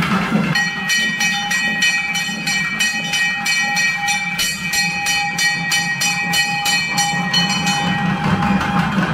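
Dance music: a long steady high note held over fast, even percussion strokes about four a second. The held note stops about eight seconds in.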